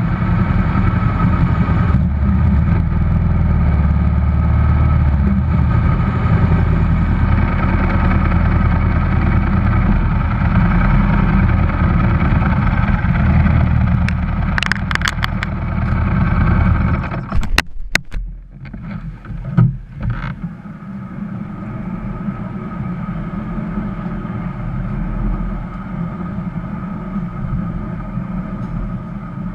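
Engine of a pre-1982 classic racing motorcycle running at low revs. About seventeen seconds in it stumbles with a few sharp cracks and sudden drops, then runs on more quietly.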